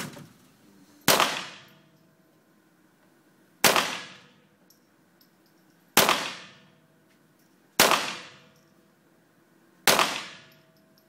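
Five pistol shots fired about two seconds apart, each a sharp crack with a short reverberant decay from the indoor firing range: one five-shot series in 25 m pistol competition.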